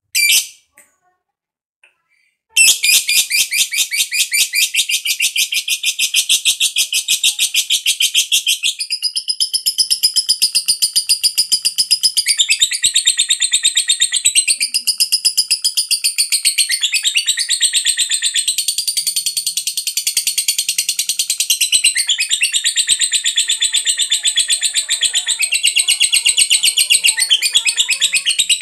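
A lovebird's long ngekek chatter: after one short chirp at the start and a brief pause, a rapid, high-pitched chattering trill starts a couple of seconds in and runs on without a break.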